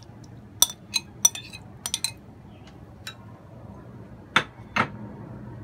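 Glass bowls clinking and tapping together as diced cucumber is tipped from one glass bowl into another. There are several light sharp clicks in the first two seconds, then two louder knocks about four and a half seconds in.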